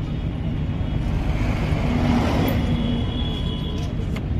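Steady low rumble of passing road vehicles, swelling for a moment in the middle as one goes by.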